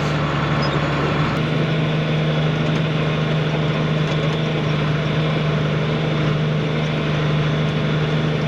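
John Deere 4250 tractor's six-cylinder turbo diesel running steadily under load, pulling a loaded grain wagon, with an even low drone.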